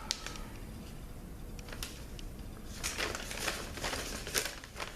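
Light handling noises at a workbench: scattered small clicks and rustling, busier in the second half.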